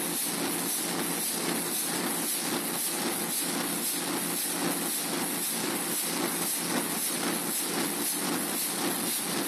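Big 1933 Burmeister & Wain diesel engine running, a steady mechanical noise with a faint regular beat and a high hiss over it.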